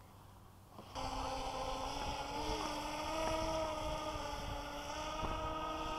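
RC hovercraft-plane's electric motors and propellers (hover fan motor and rear thrust motor) running, a steady whine of several tones that starts suddenly about a second in, with wind noise on the microphone.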